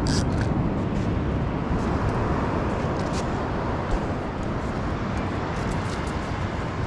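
Steady rushing noise of wind and breaking surf on a beach, with a rumble from the wind on the microphone and a few faint clicks.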